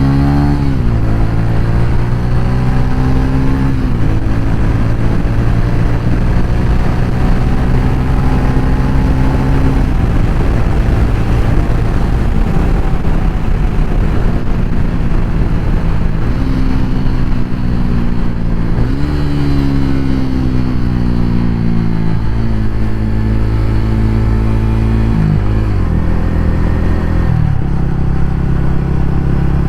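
TVS Ronin 225's single-cylinder engine pulling through the gears under way: the engine note climbs, then drops sharply at each upshift. There are two shifts in the first few seconds and a steady cruise, then the note sags and climbs again, with several more quick shifts in the second half.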